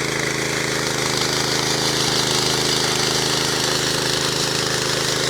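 Power trowel's small petrol engine running steadily under load as its wide combination blades float soft, fresh concrete.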